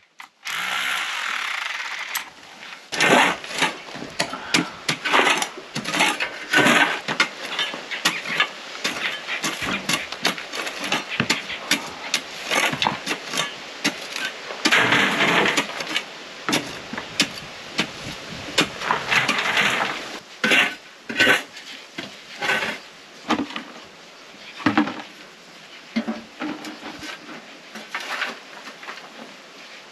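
Hand digging in dry, stony soil: shovels and a hoe biting and scraping into the ground in irregular strokes, with clattering strikes and scrapes between.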